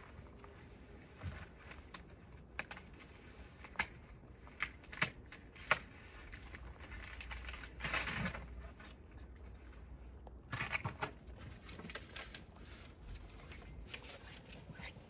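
White rabbits, a doe and her young kits, shifting and hopping in a wooden hutch: scattered light clicks and taps from paws on the wire-mesh floor, with a longer soft rustle about eight seconds in.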